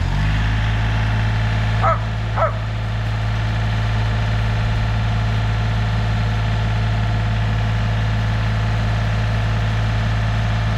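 John Deere 3025E tractor's diesel engine, just started, settling into a steady idle. A dog barks twice about two seconds in.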